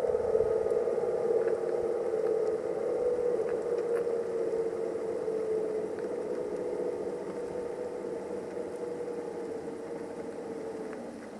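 Tesla Model S 85 rear drive unit whining at low speed: a steady tone with overtones that slowly drops in pitch and fades as the car slows. This is the drive-unit noise the owner is recording as a fault.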